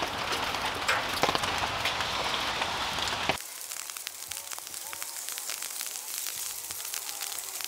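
Rain pattering and a wood fire crackling in a rocket stove under a steel grill grate. About three seconds in, the dense patter drops off suddenly, leaving fainter scattered crackles and ticks.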